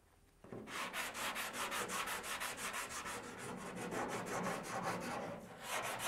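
Hand sanding block with 80-grit paper rubbed back and forth over cured body filler, quick scratchy strokes about five a second. It starts about half a second in and pauses briefly near the end before going on.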